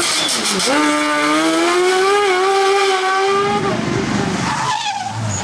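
Racing sports prototype's engine at high revs. The revs drop sharply about half a second in, then climb steadily as the car accelerates out of the corner. A little past halfway the clear engine note breaks off and a rougher, noisier engine sound takes over.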